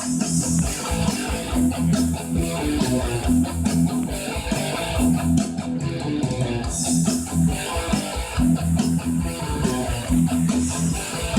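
Background rock music: an instrumental stretch with electric guitar riffs over bass and drums, at a steady beat.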